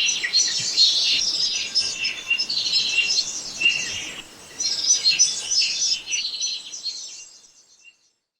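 Small birds chirping and tweeting in a dense run of short, high calls, with a brief dip about halfway, fading out near the end.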